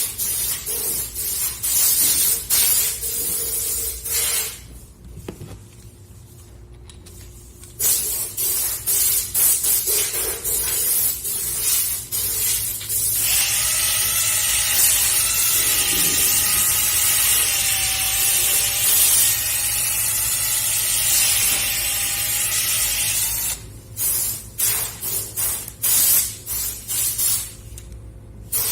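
Electric drill spinning a woodworking clamp's lever shaft against sandpaper, a hissing sanding sound. Stretches of short scratchy bursts come before and after a long steady run of about ten seconds in the middle, where the drill motor's whine wavers slightly under the sanding hiss.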